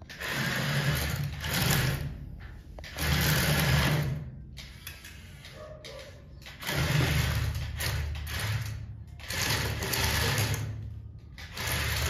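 Battery-powered toy excavator's small electric motor and plastic gears whirring in repeated bursts of about a second, with quieter gaps between, as it drives and moves its digging arm.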